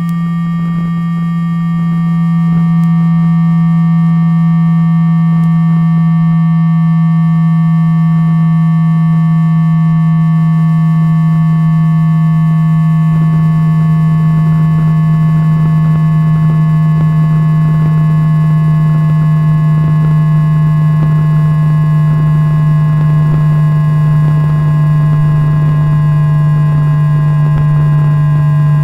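Inductor (electromagnetic pickup) recording of a JR East E2-1000 Series Shinkansen's traction motor drive while braking: its 3-level IGBT VVVF inverter in synchronous 1-pulse mode. A steady low hum with a few fainter higher tones above it, all falling slowly in pitch as the train slows; it grows louder over the first couple of seconds and then holds.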